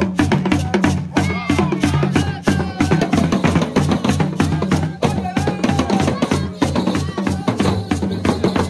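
A Yoruba drum ensemble of hourglass talking drums (dùndún) and other hand drums played live in a fast, dense rhythm.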